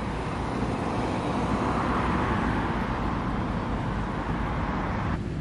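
Road traffic at a roundabout: a low engine rumble with tyre noise that swells and fades as a vehicle passes about two seconds in. The sound changes abruptly just before the end.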